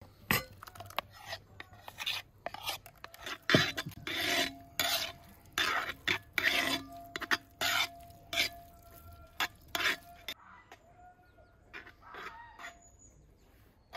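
A metal spoon scraping and stirring boiled rice and a yellow batter together in an aluminium pot: a quick run of short scrapes and rubs, thinning out after about ten seconds.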